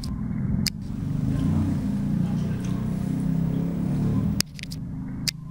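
A motor running steadily, a low wavering drone, with a few sharp clinks of a metal spoon against a ceramic soup bowl near the start and near the end.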